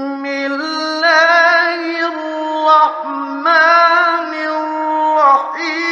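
A man's voice reciting the Quran in the melodic, drawn-out mujawwad style, holding long ornamented notes that bend up and down in pitch, on an old radio recording.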